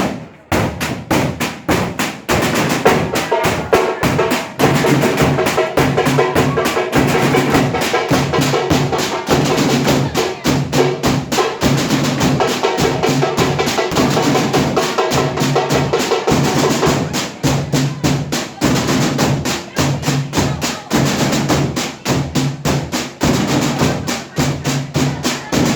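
Batucada percussion ensemble playing a fast, steady drum rhythm. A few lone drum strokes open, then the whole group comes in about two seconds in.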